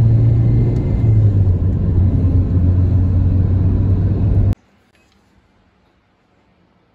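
Car cabin noise on the road: a loud, steady low rumble of engine and tyres that cuts off suddenly about four and a half seconds in, leaving only faint background noise.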